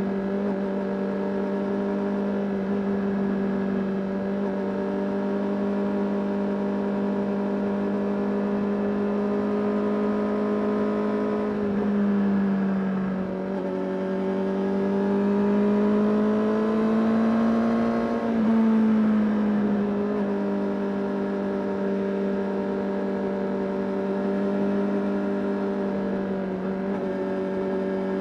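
Honda CBR 600 RR's inline-four engine running on the move at steady revs. A little under halfway the note dips, then climbs slowly in pitch and drops suddenly about two-thirds in before settling back to a steady note.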